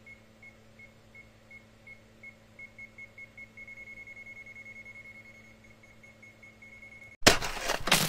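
ZOYI ZT102A digital multimeter in non-contact voltage (NCV) mode beeping, the high beeps quickening into an almost continuous tone as the meter senses a stronger AC field from a live mains cable. About seven seconds in, a sudden loud crashing sound effect cuts in.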